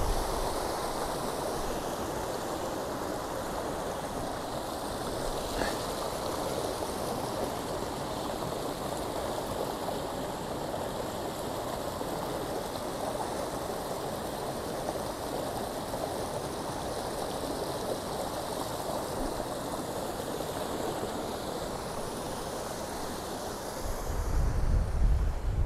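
Rain-swollen mountain stream rushing and splashing down over rocks in a steady, even roar of water. Near the end a low rumble comes in under it.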